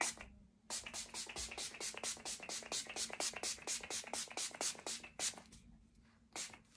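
Pump-action makeup setting spray bottle (Revolution Pro Supreme Hold Finishing Spray) spritzed over and over in quick succession, about six short sprays a second for around four and a half seconds, then one or two more near the end.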